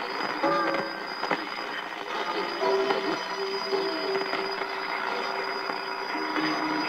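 Shortwave radio reception recorded off air onto cassette: a hiss of static with a steady high whistle, and held mid-pitched tones that change pitch a few times.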